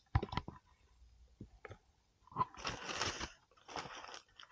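Hands handling fresh sardines and laying them in a plastic cool box: a few small clicks at the start, then two spells of rustling from the fish and packaging being handled.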